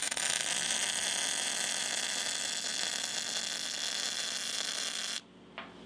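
Arc welder sizzling with a steady hiss as a weld bead is laid joining a steel doubler plate to a steel hull, stopping abruptly about five seconds in.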